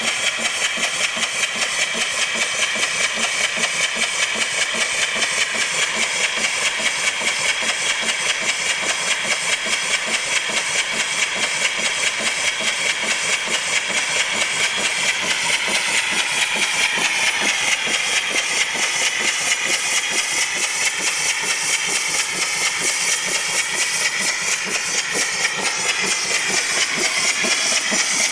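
Small steam donkey hoist engine running, with a steady, even beat of exhaust chuffs over a constant hiss of escaping steam.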